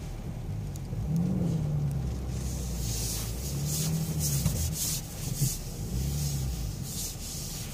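BMW X6 engine and drivetrain heard from inside the cabin while creeping over a muddy off-road track, the engine note rising and falling a few times with light throttle. Short bursts of hiss from the tyres and mud come through over the low rumble.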